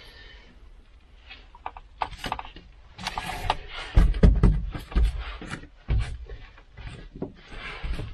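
Foam play mat being handled and pressed against a wall: rustling and scraping, with several dull thumps about four to six seconds in.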